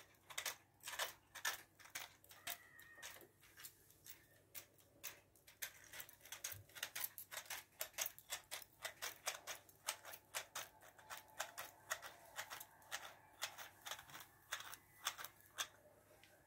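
Irregular light clicks and taps, a few a second.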